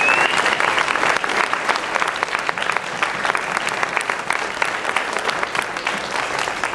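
Audience applauding: many people clapping steadily, easing off slightly toward the end.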